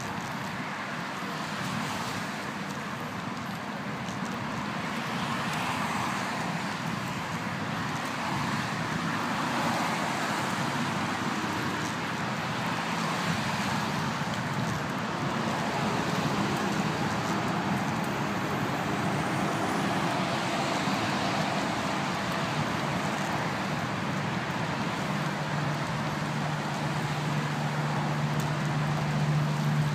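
Steady rushing noise of a bicycle ride, mixed with traffic noise from a nearby road. A steady low hum joins in the last few seconds.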